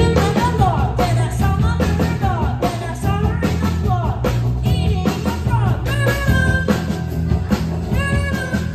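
A live rock band playing, with drum kit, bass guitar and keyboard, while a young boy sings into a microphone over them.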